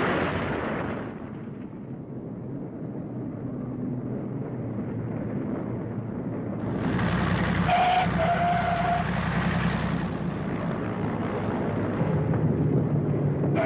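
A loud rushing noise fades out in the first second, leaving a low hum. From about seven seconds in, propeller-aircraft engine noise rises and runs on as a steady drone.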